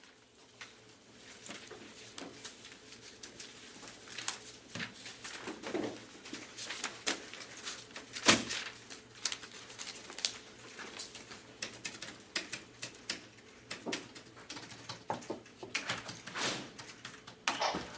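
Room ambience: irregular clicks and taps over a faint steady low hum, with one sharp knock about eight seconds in.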